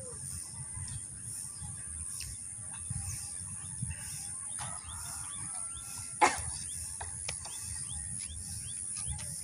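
Outdoor lakeside ambience: a steady high-pitched insect drone and a low wind rumble, with a bird chirping in short calls about three times a second in the second half. One sharp knock about six seconds in is the loudest sound.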